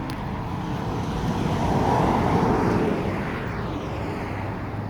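Semi truck passing by on the highway: engine and tyre noise swells to a peak about two seconds in, then fades away.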